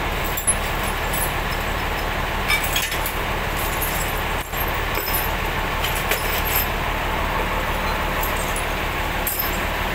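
Loose steel bolts and nuts clinking and rattling as they are sorted by hand and dropped into a metal bucket, in scattered short clinks. Under them runs a running engine's steady low hum.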